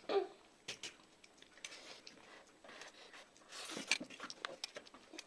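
A metal fork clicking and scraping on a steel plate of boiled instant noodles, and the sounds of eating noodles in short, scattered bursts.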